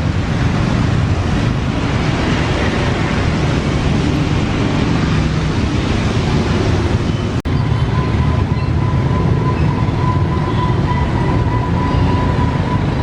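Steady loud low rumble of mechanical or street noise. It breaks off for an instant about halfway through, after which a steady high-pitched tone joins it.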